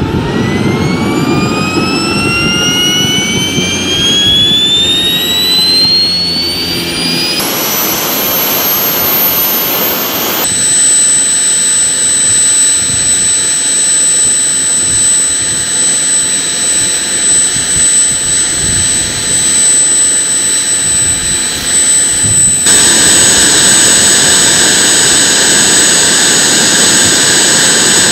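A PBS TJ40 small turbojet engine lighting and spooling up, its whine rising steadily in pitch, then running at a steady high-pitched whine. The sound jumps abruptly in level and tone a few times.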